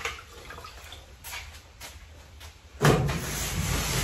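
Wet rag wiping and rubbing across a bare aluminum boat hull. A few faint strokes come first, then a louder, steady scrubbing begins about three seconds in.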